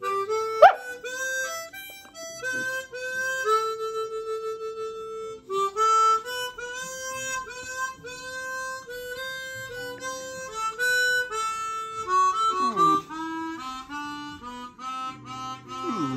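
Harmonica music playing held notes and chords that change about every half second. Short sliding cries cut in briefly about a second in and again near the end.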